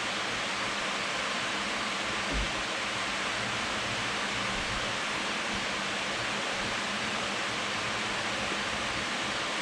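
Electric fan running steadily, blowing across the microphone with an even rushing noise. A single light knock sounds about two and a half seconds in.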